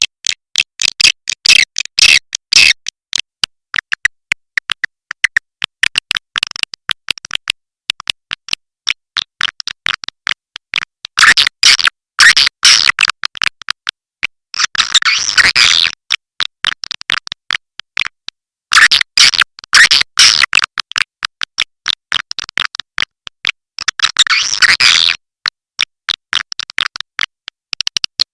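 Swiftlet call recording used as a lure to draw edible-nest swiftlets into a swiftlet house: rapid trains of sharp, high clicks and twitters, broken by denser bursts of chattering chirps that come back every few seconds, with brief gaps between.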